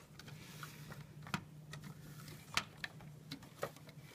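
Plastic Lego sections being handled and set down on a glass tabletop: a handful of light, scattered clicks and taps, over a faint steady low hum.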